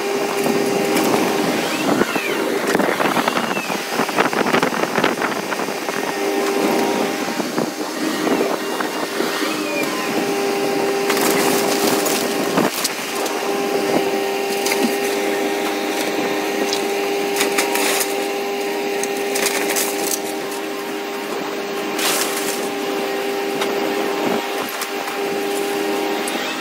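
Cat 340 hydraulic excavator tearing down a brick house with a demolition grapple: the machine's steady hum runs under repeated cracks and crashes of splintering wood and falling debris, with several sharp crashes in the second half.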